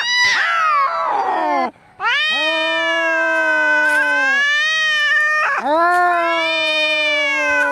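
Domestic cat yowling in long, drawn-out wails, the caterwauling of an angry cat. There are three long yowls: the first ends in a rough, falling cry about two seconds in, and the last starts near the middle.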